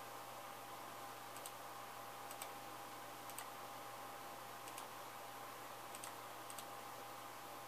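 Computer mouse button clicking: about six short, sharp clicks, each a quick double tick, spaced a second or so apart, over a steady faint hiss and hum.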